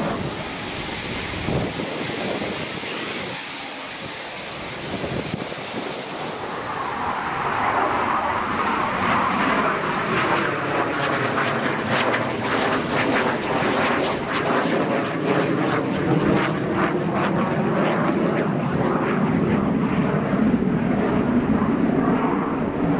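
Eurofighter Typhoon jet noise, loud throughout: it sags in the first few seconds, then builds again from about seven seconds in. As the jet passes, the noise takes on a crackle and a sweeping, phasing tone.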